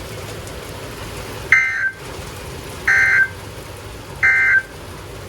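Emergency Alert System end-of-message (EOM) data bursts: three short, harsh digital bursts about a second and a half apart. They signal the end of the alert message.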